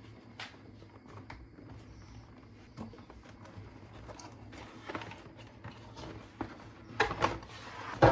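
Packaging being handled during an unboxing: scattered light knocks, clicks and rustling, with a couple of louder knocks near the end.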